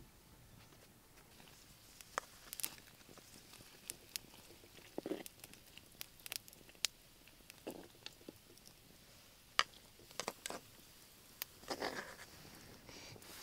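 Scattered clicks, knocks and short scrapes of a coconut-shell ladle in a cooking pot and against a coconut-shell bowl as food is stirred and served, with the longest scrapes about five seconds in and again near the end.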